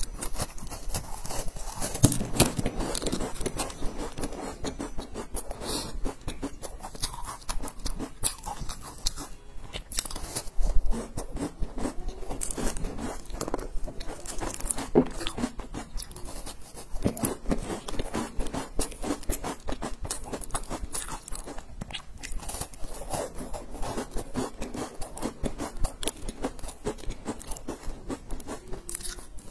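Close-up biting, crunching and chewing of crisp, sesame-topped biscuits: dense, irregular crackling crunches throughout.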